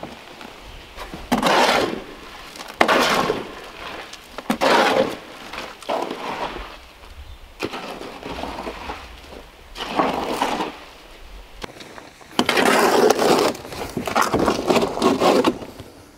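A hoe scraping and pushing through wet cement mix in a plastic mixing tub, in repeated strokes every second or two, with a run of longer strokes near the end.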